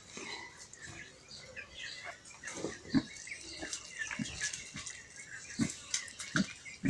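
An animal grunting in short, low calls, about five times in the second half, the loudest about three seconds in, with small birds chirping high and thin throughout.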